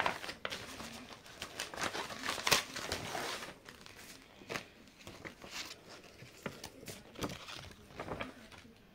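Packaging of a cross-stitch kit crinkling and rustling as it is opened and handled, in dense crackles for the first three seconds or so, then in sparser ones.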